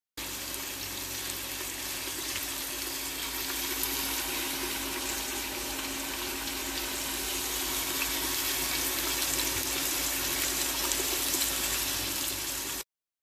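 Kenwood Cooking Chef XL bowl heating at 140°C with a pork loin in it: a steady hiss with a faint low hum, stopping suddenly near the end.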